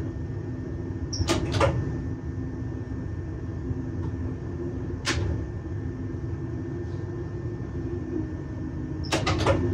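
Steady running noise and hum in the driver's cab of a regional electric train under way. A few short clicks and knocks stand out: a pair about a second and a half in, one about five seconds in, and a quick cluster near the end.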